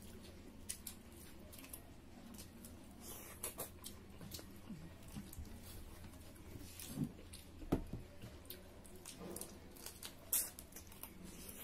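Close-miked eating by hand: chewing and lip-smacking, with fingers squishing rice and pork curry on plates, heard as scattered small wet clicks and smacks, a few louder ones around the middle and near the end.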